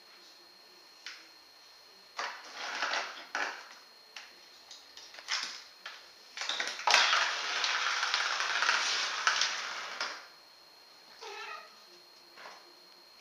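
A cat tussling with a toy mouse on a tiled floor: short bursts of scuffling noise, then a longer stretch of about three seconds in the middle. Near the end, one short meow.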